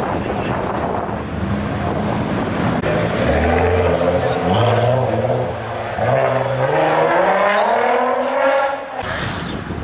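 High-performance car engine accelerating hard through the gears: its pitch climbs, drops back at each upshift, climbs again, and then fades away about nine seconds in.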